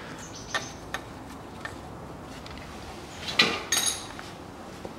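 Metal hand tools clicking and clinking. There are a few light clicks, then a louder metallic clatter with a short ring about three and a half seconds in.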